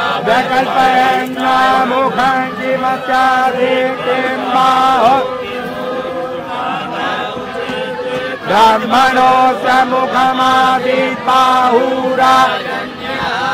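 Hindu priests chanting mantras, a melodic recitation of long held notes that eases off around the middle and picks up again strongly.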